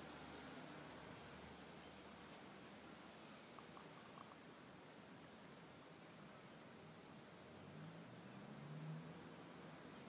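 A sleeping hen snoring faintly: little clusters of three or four short, high squeaks, repeated every two to three seconds.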